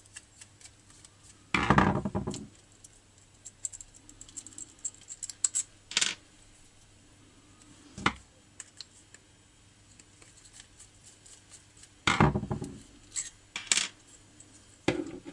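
Small steel carburetor screws and a screwdriver clinking and rattling on a hard concrete surface as they are taken out and put down, with light clicks of the screwdriver working in between. There are two louder clattering clinks, about two seconds in and about twelve seconds in.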